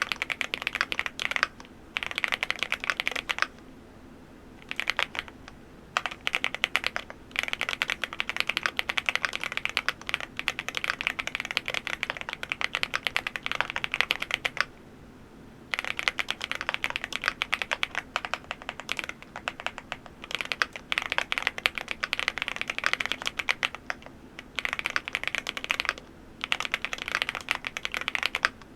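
Typing on an MCHOSE GX87 full-aluminium tenkeyless mechanical keyboard: fast runs of keystrokes broken by short pauses, the longest about a third and about half of the way through.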